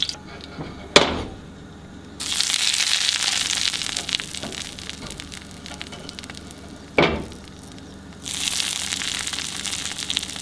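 Hot basting butter sizzling and bubbling on a freshly pan-seared steak. The sizzle comes and goes, loudest from a couple of seconds in and again near the end, with two sharp knocks, one about a second in and one about seven seconds in.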